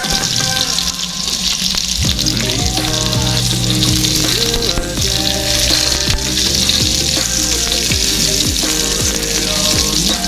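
Chopped onion sizzling steadily in hot oil in a nonstick frying pan, stirred with a spatula.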